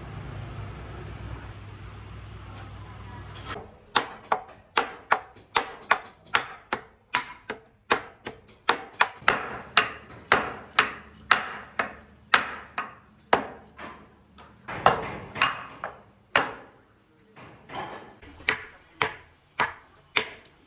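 A low steady hum, then from about three and a half seconds in, a long run of sharp strikes, about two a second, each with a short ring.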